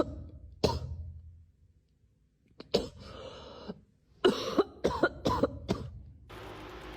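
A series of short coughing sounds, with a quick run of four or five near the end.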